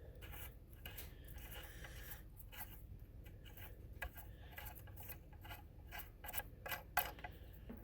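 Faint, irregular metallic clicks and scrapes of the 13 mm bolts on a GM 2.4 twin cam's coil-pack cover being spun out by hand and handled.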